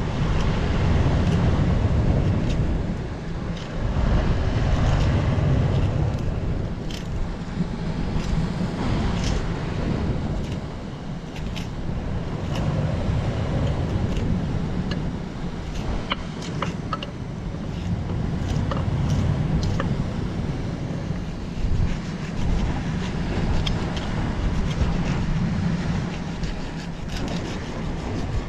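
Wind rumbling and buffeting on the microphone, with surf washing in the background and scattered light clicks and taps.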